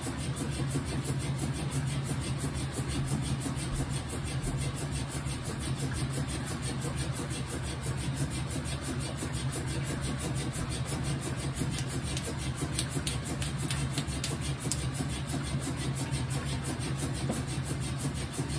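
Whirlpool washing machine running through a load of towels, a steady motor hum with a constant churning rush.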